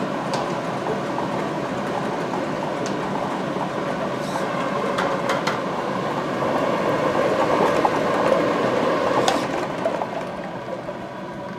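Air-mix lottery ball machines blowing numbered plastic balls around inside clear cylinders: a steady rush of air with balls rattling and clicking against the walls, dying down near the end as the drawn balls drop out.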